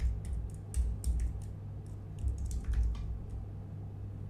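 Typing on a computer keyboard: a quick, irregular run of keystrokes in a few short bursts.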